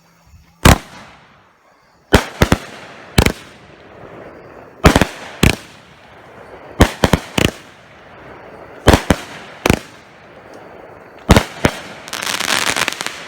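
Power Zone 200-gram fanned firework cake firing: about a dozen sharp bangs come at uneven intervals, several in quick runs of two or three. Near the end they give way to a dense crackling.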